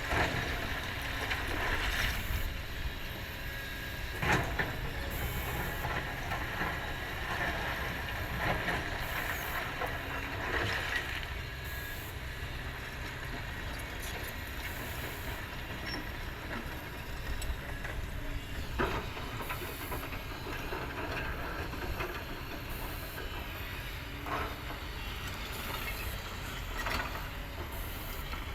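Heavy diesel machinery running steadily with a hiss, broken by several sharp clanks and knocks.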